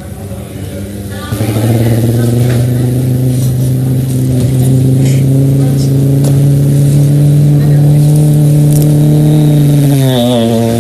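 A man imitating a car passing on a highway with his voice: a low, steady engine drone that starts about a second in, holds for about nine seconds and drops in pitch near the end as the imagined car goes by.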